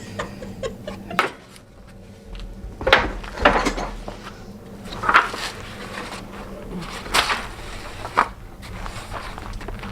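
Bed slats knocking and clattering as they are handled and set into a steel bed frame, about six separate knocks spread out with short pauses between.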